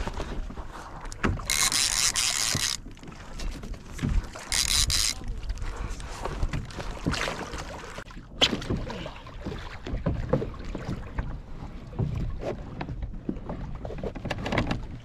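A large kahala (greater amberjack) thrashing at the surface beside a plastic fishing kayak: water splashing and irregular knocks against the hull, with two short bursts of loud hiss, one a little under two seconds long about a second and a half in, another about three seconds later.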